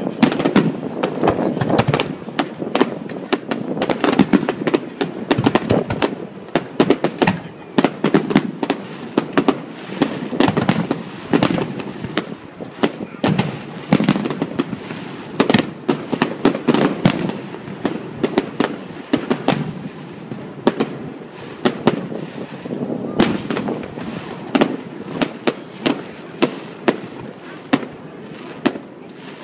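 Aerial fireworks shells bursting in rapid, irregular succession, dozens of sharp bangs over a low rumble. The bangs come thick and fast at first and grow sparser and fainter towards the end.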